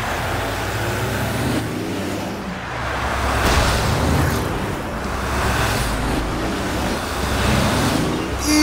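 Cartoon race-car engine sound effects: cars and a monster truck speeding past on a dirt track, a steady rushing engine noise with a low hum that swells as they pass.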